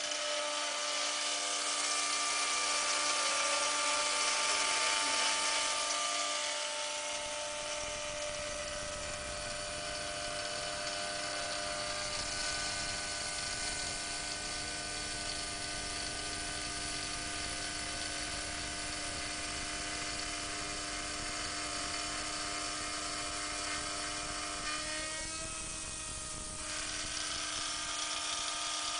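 Homemade CNC machine's spindle running as it cuts plexiglass, a steady high whir, with the axis motors' whine sliding in pitch as the tool moves. It is loudest and hissiest in the first few seconds.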